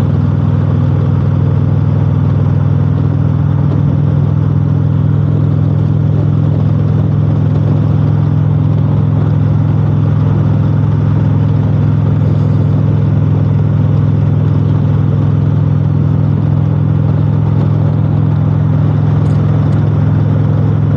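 Touring motorcycle engine running at a steady highway cruising speed: a constant low drone that holds one pitch, with a rushing haze of wind and road noise over it.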